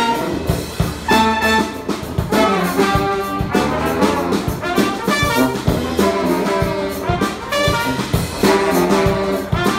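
Live brass band playing an upbeat tune: sousaphone bass line, trombone, trumpet and saxophone over a drum kit's steady beat.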